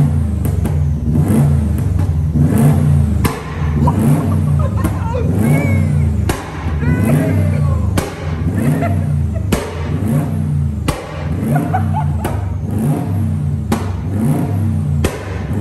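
Subaru WRX's turbocharged flat-four running through its new muffler, revved in repeated blips about once a second.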